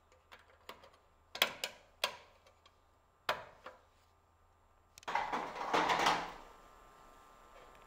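Several light clicks and knocks, a few in quick pairs, then about a second of rustling or scraping noise starting about five seconds in, in a small room.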